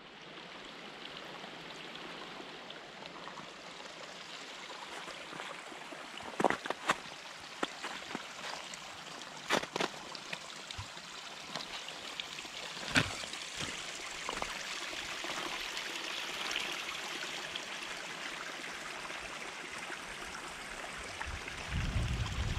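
Small mountain stream trickling steadily over rocks, with a few sharp clicks about six, ten and thirteen seconds in and a low rumble coming in near the end.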